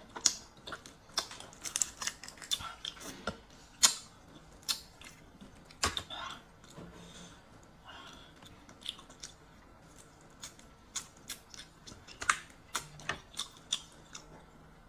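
Close-up eating sounds: wet chewing of raw prawn, and the shell of a raw red prawn being peeled by hand, heard as a run of sharp clicks and crackles. The clicks thin out around the middle and come thicker again near the end.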